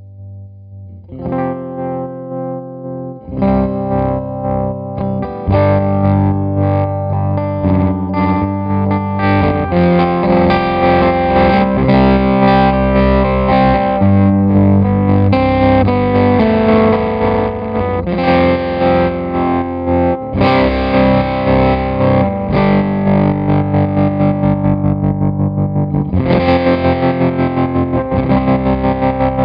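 Distorted electric guitar chords played through a CopperSound Loma Prieta tremolo pedal in its standard (amplitude) tremolo mode, the volume pulsing up and down. The pulsing gets faster and more even in the later part as the rate is turned up, and the pedal's grit control adds a gritty edge.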